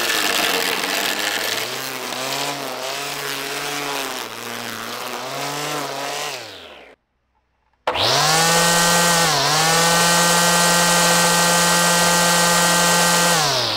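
Corded electric string trimmer's universal series-wound motor whining as it cuts grass, its pitch dipping and recovering under the load of the grass. It stops about seven seconds in, then runs again with no load at a steady higher pitch, spinning the spool at about 10,300 RPM, and starts to wind down at the very end.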